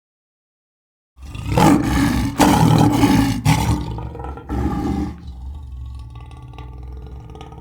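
A large animal roaring loudly for about four seconds, starting a second in, then a quieter low rumble that carries on.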